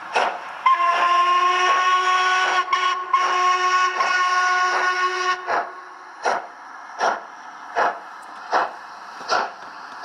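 Model steam locomotive sound decoder playing a Black 5 sound file: one long steam whistle lasting about four and a half seconds, over steady exhaust chuffs at a bit more than one a second, played through the model's small onboard speaker.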